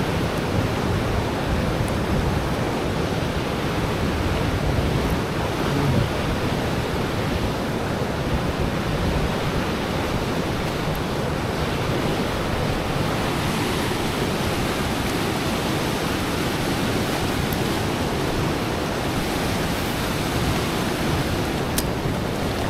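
Steady rush of fast-flowing river water at a dam, an even noise with no let-up.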